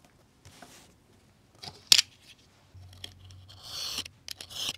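A snap-off craft knife drawn along a ruler, slicing through a paper notebook's cover and pages in a few light strokes late on. About two seconds in there is one sharp click.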